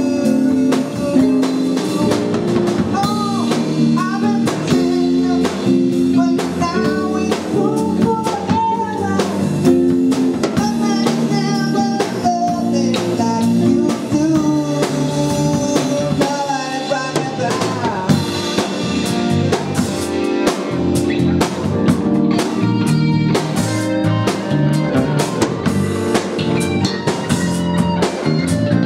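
Live band playing a song: drum kit, electric bass, keyboard and electric guitar, with a man singing over them.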